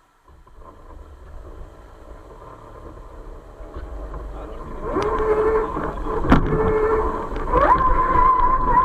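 RC crawler's electric motor and gearbox whining as it drives over rough ground, getting louder. The whine steps up in pitch twice as throttle is added, with a sharp knock about six seconds in.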